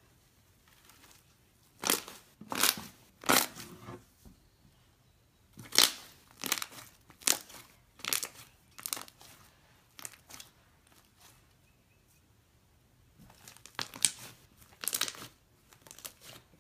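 White fluffy slime mixed with lotion being stretched and squeezed by hand, giving sharp crackling pops in bursts with quiet stretches between them.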